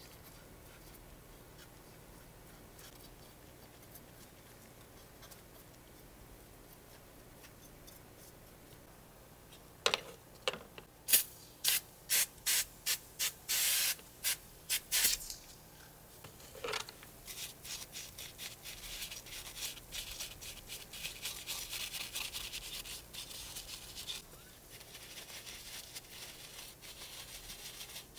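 Faint brushing at first. Then a hand trigger sprayer is squeezed about ten times in quick, sharp hisses, one held longer, wetting plastic model-car parts with cleaner. Then a brush scrubs the foamy parts with a fast, steady scratching.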